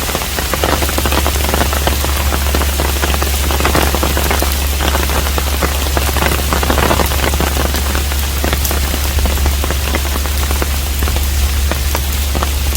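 Steady rain falling on a traditional Korean hanok house, a dense spray of individual drops over even rain noise, with a steady low rumble underneath.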